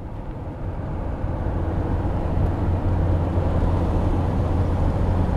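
Road and engine noise inside a moving van, most likely the 2003 Volkswagen Eurovan: a steady low drone that fades in over the first two seconds and then holds.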